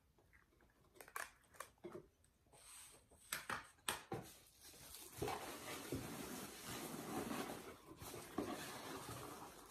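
Handling noise of small items: a few light clicks and knocks as things are set down, then from about five seconds in a steady rustle and crinkle as a bubble-wrapped package is picked up and handled.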